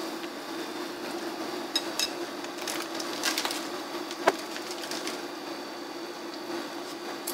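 Instant noodles boiling in a stainless steel pot on an induction cooktop, over a steady hum. A few sharp clicks and taps come about two to four and a half seconds in.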